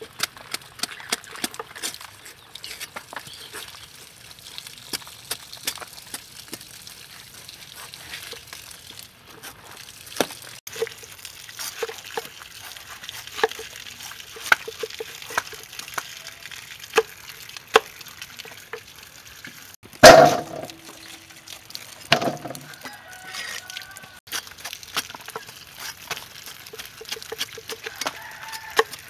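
Meat cleaver cutting and peeling raw jackfruit on a wooden chopping block under running water: irregular knocks and taps of the blade against the fruit and board over a faint patter of water, with one much louder knock about two-thirds of the way in.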